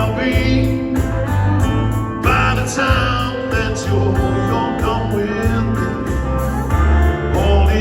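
Loud amplified music with guitar over a heavy, pulsing bass line.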